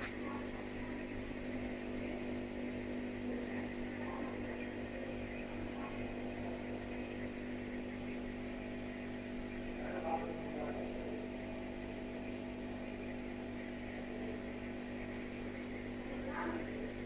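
A steady electrical or mechanical hum, with a few faint, brief sounds about ten seconds in and again near the end.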